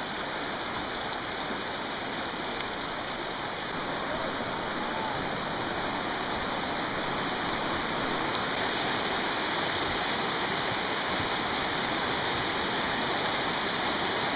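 A fast, rocky mountain river rushing over stones in a steady, loud wash of water noise that grows a little louder about halfway through.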